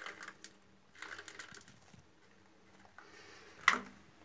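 Faint clicks and scratchy rattling as drain-opener granules are pushed by hand into a shower floor drain, with one sharper click near the end.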